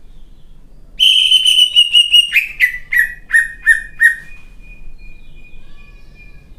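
Cucak ijo (green leafbird) singing a loud burst about a second in. A fast high chattering run is followed by about five sharp falling notes, stopping about four seconds in. A faint thin steady whistle goes on afterwards.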